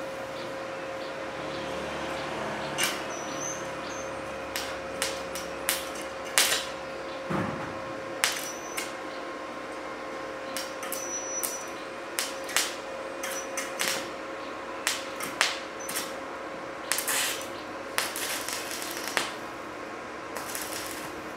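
Stick (MMA) arc welding on 2 mm hollow steel with a 2 mm electrode at the welder's lowest amperage. The arc is struck and held in short tacks, giving irregular sharp crackles and pops, with a denser run of crackling near the end, over a steady hum.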